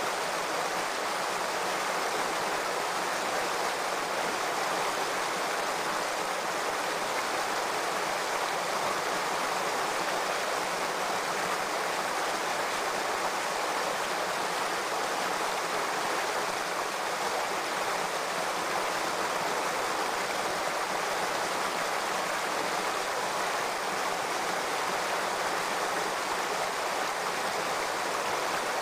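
Shallow rocky stream running steadily over stones, a constant rushing of water.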